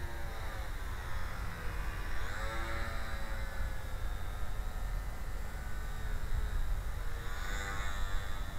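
Small electric motor and propeller of a WLtoys F-939 Pole Cat micro RC airplane whining in flight, its pitch sliding up and down twice as the throttle and passes change. A steady low rumble of wind on the microphone runs beneath it.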